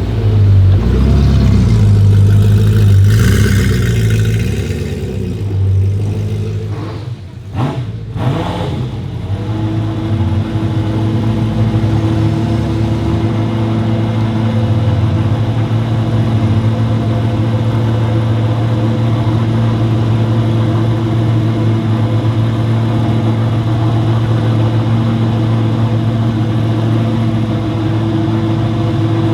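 Ferrari F40 LM's twin-turbo V8 on a straight-pipe exhaust, revving for the first several seconds. The revs fall away about seven seconds in, and the engine then idles steadily.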